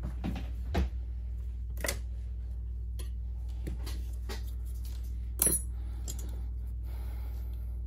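Scattered small clicks and taps of a thin metal pry tool working on the exposed internals of a Samsung Galaxy Note 9, the sharpest about five and a half seconds in, over a steady low hum.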